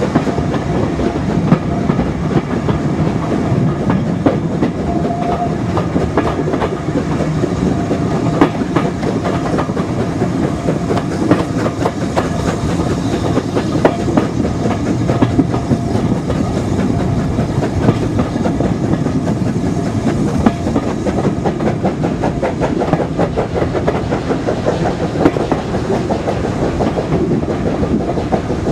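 Moving train heard from an open carriage window: the steady rumble of the coaches with a continuous clatter of wheels over the rail joints.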